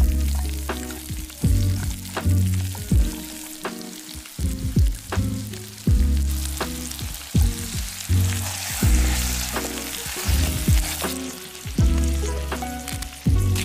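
Background music with a steady beat and deep bass notes, over steak, onions and butter sizzling in a hot pan; the sizzle grows louder about halfway through.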